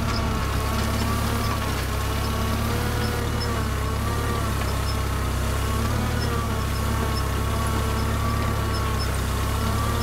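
Farmall Cub tractor's small four-cylinder flathead engine running steadily.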